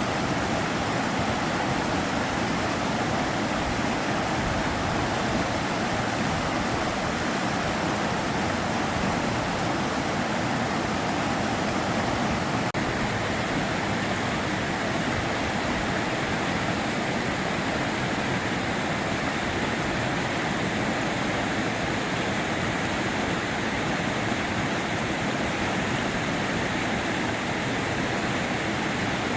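River water flowing and rushing over rocks: a steady, even wash of noise.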